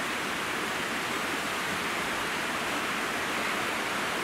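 A fast-flowing river rushing, a steady even hiss of running water.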